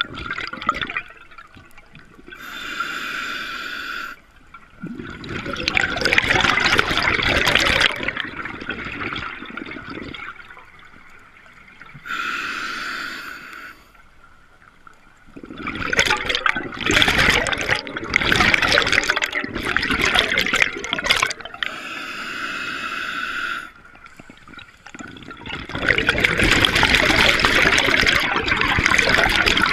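A scuba diver breathing through a regulator, heard underwater in three breaths. Each inhalation is a short hissing whistle through the regulator, followed by a longer, louder rush of exhaled bubbles.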